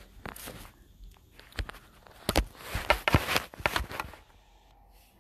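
Handling noise as a phone camera is moved and repositioned: a string of irregular knocks and rubs, thickest between about two and four seconds in.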